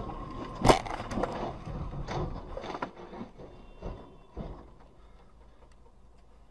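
A car rolling over on a highway: one loud crash, then a run of bangs and clatters as the body tumbles and lands on its roof, dying away after about four seconds.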